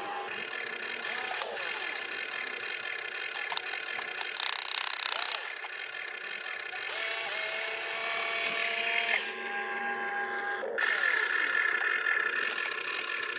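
RC excavator's electric motors and gearboxes whining as the boom, bucket and turntable move, the pitch gliding up and down as the motors start and stop. Three louder rushing bursts of about one to two seconds each break in along the way.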